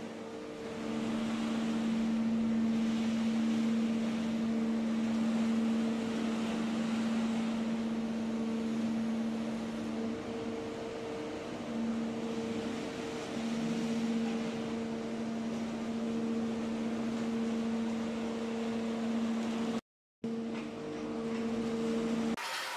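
Steady machinery hum in a ship's cargo hold: a constant low drone with a second, higher tone above it over an even noise. It drops out for a moment about twenty seconds in.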